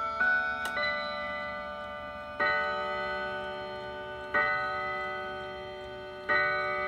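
Howard Miller Worthington mantel clock finishing its chime melody in the first second, then striking the hour: three strokes about two seconds apart, each ringing on and fading, the start of its twelve strokes for noon.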